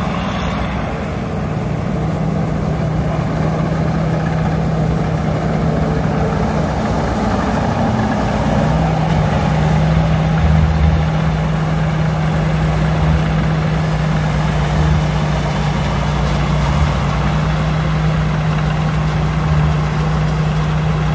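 Rice combine harvester running steadily, a heavy diesel engine with a low hum and a faint high whine from the machinery. The engine note drops slightly and grows stronger about eight seconds in.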